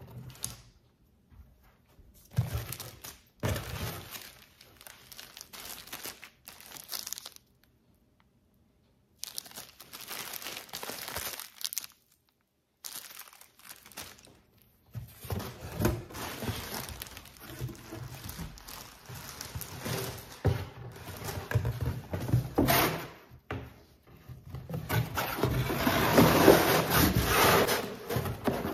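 Plastic packaging crinkling and rustling in irregular bursts as it is handled and unwrapped, with a few dull thunks. The crinkling is loudest near the end, and it is broken by short gaps of dead silence.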